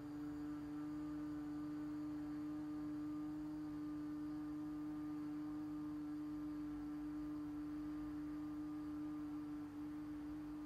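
A woman humming one long, steady 'mmm' on a single low note with closed lips: the M sound of yogic chanting, directed inward to make the body vibrate.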